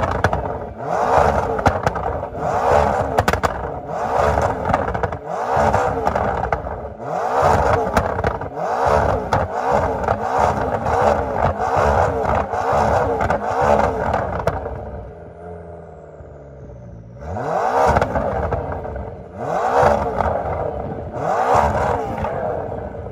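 McLaren twin-turbo V8 with a straight-piped titanium exhaust and flamethrower kit, revved hard again and again, about one blip every second and a half, each with crackling pops from the exhaust. The revving stops for a couple of seconds of idle past the middle, then starts again.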